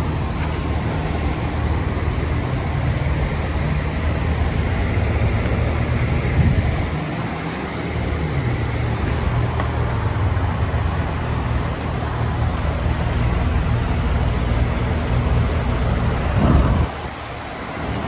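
Outdoor heat pump units running: a steady low hum of compressor and condenser fan motors under a constant rush of fan air.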